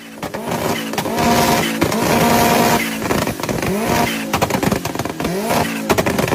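Turbocharged car engine under hard acceleration, its pitch climbing in quick pulls that are broken by sharp cracks: the brief power cuts of a shift-cut system on upshifts.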